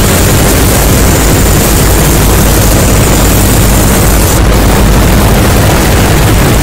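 Harsh noise music: a loud, unbroken wall of distorted noise with a heavy low rumble. A layer of high hiss on top cuts out about four and a half seconds in.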